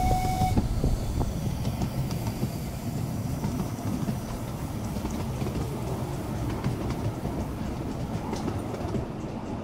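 Train running along the track with a steady low rumble. A thin whistle tone carried over from just before stops about half a second in.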